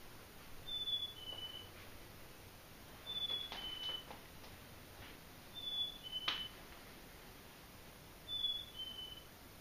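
Recorded black-capped chickadee song: the clear two-note 'fee-bee' whistle, the second note lower, repeated four times about every two and a half seconds. A few short sharp clicks come in between, the loudest about six seconds in.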